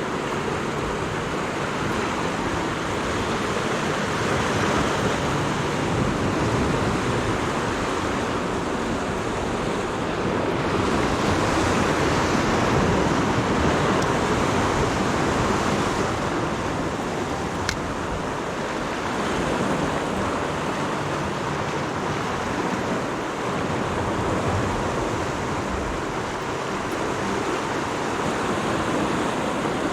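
Sea waves washing against the shore in slow, swelling surges, with a single short click about eighteen seconds in.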